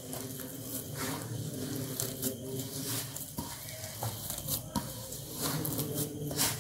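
A hand rubbing and squeezing damp rice flour in a steel bowl, working in hot water to form a dough: irregular crumbly rustling and soft scraping against the metal. A steady low hum runs underneath.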